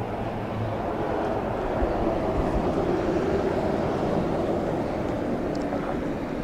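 Road traffic: vehicle engines and tyre noise passing by, swelling about two seconds in and easing off again.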